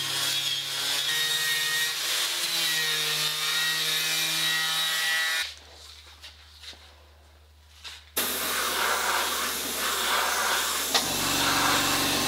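An angle grinder with a sanding disc grinds the rusty steel lip of a car's wheel arch, throwing sparks, and stops abruptly about five seconds in. From about eight seconds a gravity-feed spray gun hisses steadily as it sprays epoxy primer into the wheelhouse.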